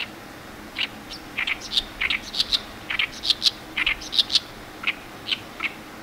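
Oriental reed warbler singing: a fast run of short, harsh, grating notes, its chattering territorial song, beginning about a second in and thinning to a few single notes near the end.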